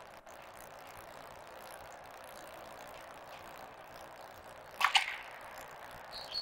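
Squash ball struck by a racket and smacking off the court wall: a quick pair of sharp cracks about five seconds in, over a steady hiss.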